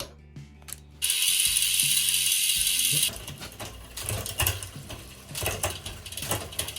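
Bicycle rear freehub ratcheting: a loud, fast buzz of pawl clicks for about two seconds, stopping abruptly, then slower irregular ticking.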